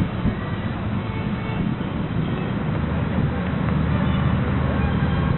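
Ferryboat engine running with a steady low rumble, mixed with wind on the microphone; a steady low hum comes in about three seconds in.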